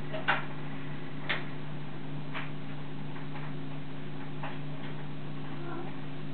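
Short ticks about once a second, over a steady low hum.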